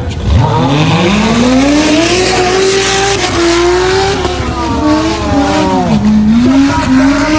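Off-road tubular buggy's engine revving hard as the buggy launches through deep mud. The pitch climbs steeply in the first two seconds and holds high, wavering, then dips about six seconds in and climbs again. A rushing hiss of tyres churning and spraying mud runs over the first few seconds.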